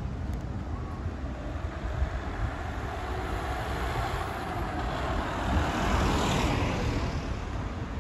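A vehicle passing by: its running noise swells to a peak about six seconds in and then fades.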